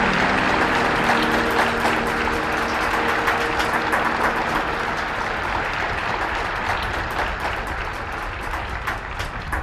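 Audience applause, dense clapping, over the last held chord of the music. The chord dies away about four to five seconds in, leaving the applause, which eases slightly toward the end.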